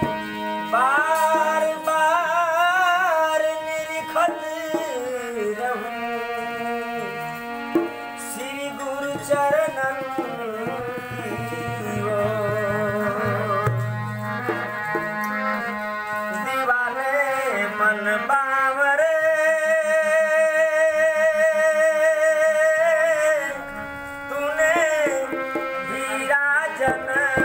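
Devotional bhajan: a man singing over a harmonium and a dholak drum, with the voice holding one long note for a few seconds in the latter part.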